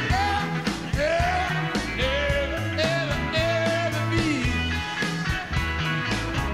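Rock music: bass and drums under a lead melody that slides up and down between notes.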